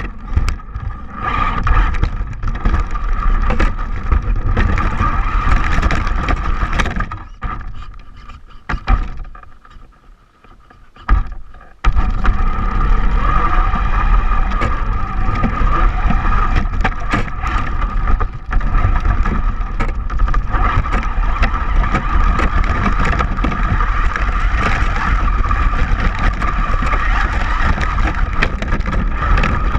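Traxxas Slash 4x4 RC short-course truck running over rough ground: a steady electric motor and drivetrain whine over loud rumbling noise. It falls away for a few seconds, then cuts back in abruptly at full level about twelve seconds in.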